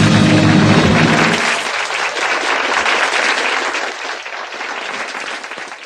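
The last chord of the song's backing music dies away about a second and a half in. It is followed by audience applause that gradually fades out.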